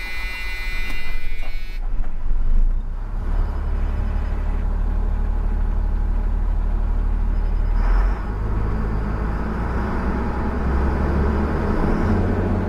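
330 hp Caterpillar diesel engine of a motorhome running just after start, a steady low drone. A dash warning buzzer sounds over it for the first couple of seconds, then cuts off.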